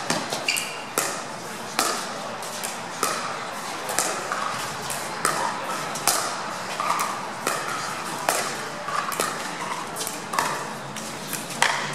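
Pickleball paddles striking a plastic ball in a long rally of soft dinks at the net, a sharp pop about every half second to a second.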